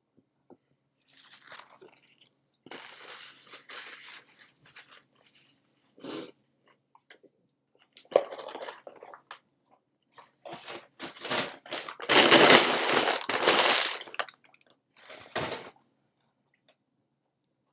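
Paper fast-food packaging crinkling and rustling as it is handled, in several short spells. The longest and loudest spell comes about two-thirds of the way through and lasts about two seconds.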